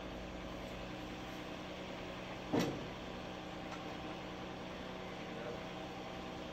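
Mini excavator's diesel engine idling steadily, heard from a distance. One sharp clank about two and a half seconds in is the loudest sound.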